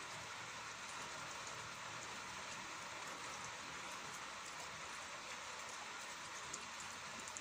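Steady rain falling, an even hiss with a few sharper drop ticks near the end.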